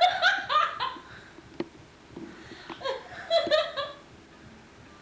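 A young child laughing in two high-pitched bursts, with a sharp click between them.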